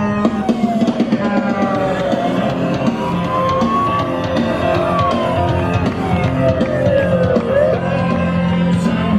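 Loud rock music with a drum kit and guitar, with a slow siren-like wail gliding down, up and down again over it.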